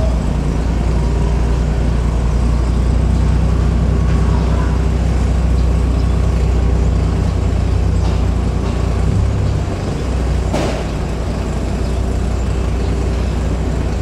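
Boat engine running with a steady low drone, with a single short knock about ten and a half seconds in.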